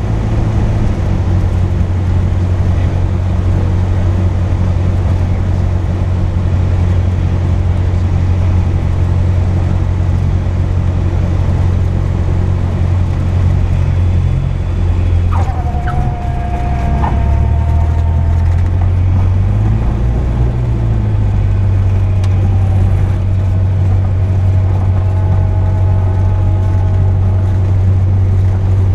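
Cessna 172 Skyhawk's piston engine and propeller droning steadily in the cockpit through the landing, the engine note shifting about two-thirds of the way through. A whistling tone slides down and holds for a few seconds near the middle.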